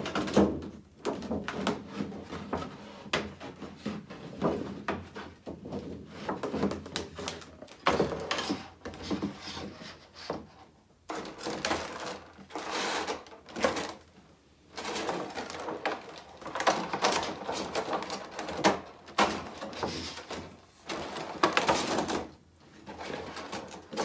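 Thin plastic 10-inch pop protector and plastic tray crinkling, scraping and clicking in irregular bursts as a boxed figure is worked into the protector.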